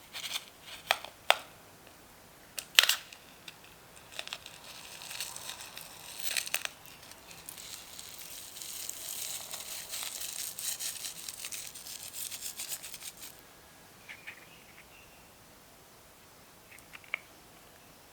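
Close-up slime-making handling sounds: a few sharp snaps in the first few seconds, then about ten seconds of dense crackling, crinkling noise that stops suddenly, followed by a few faint ticks.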